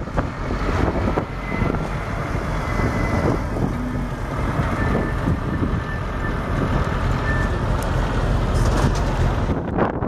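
Diesel engine of a flatbed recovery lorry running as it drives past, a steady low rumble.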